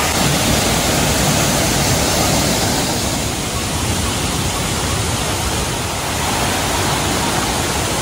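Steady rush of fast-flowing water from a small waterfall and a shallow stream running over rocks, slightly softer after about three seconds.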